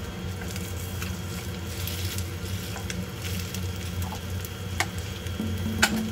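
Minced rockfish burger patties frying in a shallow layer of oil in a nonstick pan: a steady sizzle with scattered crackling pops, the sharpest one near the end.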